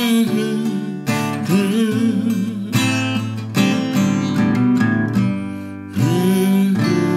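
Acoustic guitar strummed in chords, with a few strong strokes breaking the rhythm.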